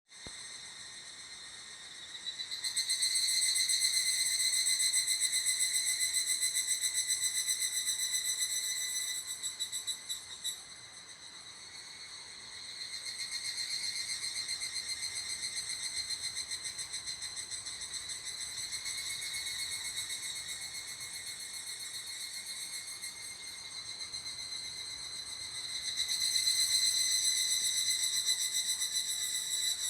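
Higurashi (evening cicadas, Tanna japonensis) calling with a rapid, pulsing, high-pitched trill in three long bouts, with short lulls about a third and two thirds of the way through.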